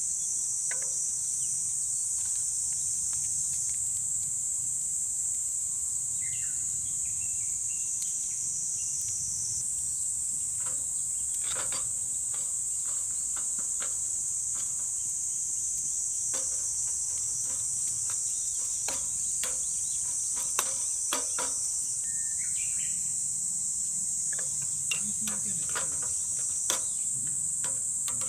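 A steady, high-pitched chorus of summer insects buzzing without pause. Scattered sharp pops and cracks from a wood campfire crackling come more often in the second half.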